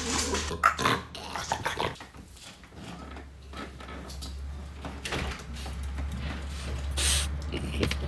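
French bulldog making a string of short, loud noises with its breath and voice in the first two seconds, then quieter ones, over a steady low hum. A brief hissing rustle comes about seven seconds in.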